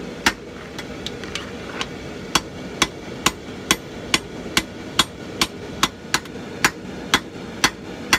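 Hand hammer striking red-hot 1084 carbon steel on an anvil, drawing out a knife tang: a steady run of sharp blows about two a second, with a few lighter ones about a second in.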